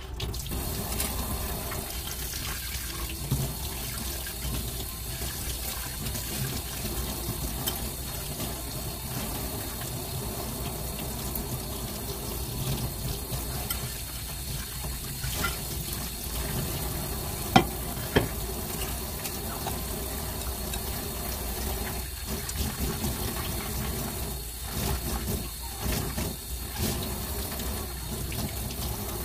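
Kitchen tap running into a stainless steel sink while white plastic cat water fountain parts are rinsed under it, the water splashing off them. Two sharp clacks a little past halfway.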